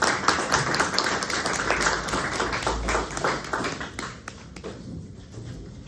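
A small audience clapping in a classroom: many hands together, strong at first and dying away after about four seconds.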